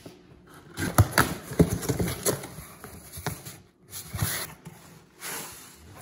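Cardboard parcel being opened by hand: a run of sharp, irregular knocks and scrapes from scissors and box flaps, then rustling as a hand digs into the shredded-paper packing near the end.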